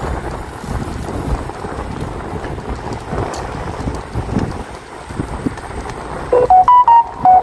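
Steady wind and tyre rumble from a bicycle being ridden through a long tunnel. Near the end, a quick run of short, loud electronic beeps at different pitches cuts in.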